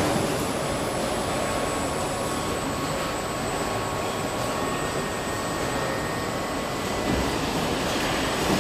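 Steady machinery noise of a car assembly hall, with a faint steady whine.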